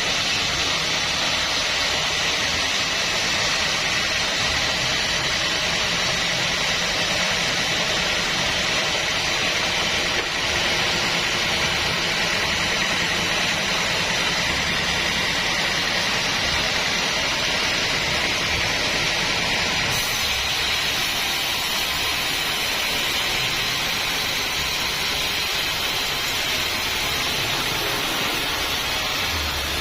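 Sawmill bandsaw running and cutting through acacia wood: a loud, steady, hissing noise that holds even throughout.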